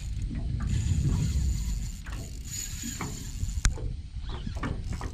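A light spinning reel worked under load, its mechanism clicking and whirring as the angler fights a hooked bull shark. Low wind rumble on the microphone, strongest about a second in, and one sharp click a little past halfway.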